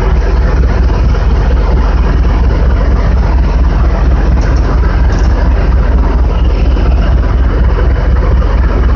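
Supply boat's engine running steadily alongside the ship: a loud, low, even rumble that does not change.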